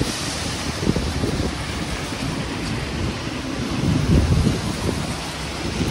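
Storm wind gusting against the microphone in irregular low rumbles over a steady hiss of rain.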